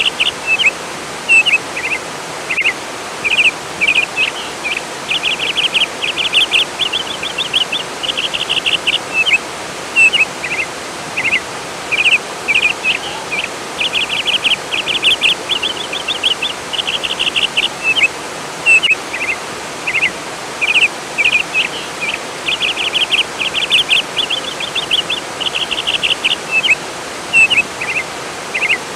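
Songbirds chirping and trilling in quick repeated phrases over the steady rush of flowing water.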